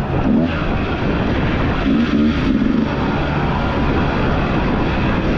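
Off-road motorcycle engine running on a dirt trail, its note half buried under a loud, even rushing noise.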